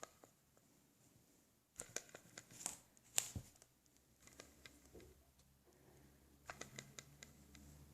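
Faint, irregular clicks and knocks from a reel being handled and turned: the knocking in the reel that the owner is showing. There are two short clusters of clicks, one about two seconds in and one near the end.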